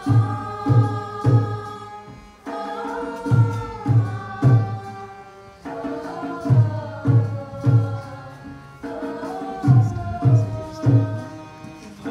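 Music for a stage play: a drum beating in short groups of strikes under a wavering sung or chanted melody.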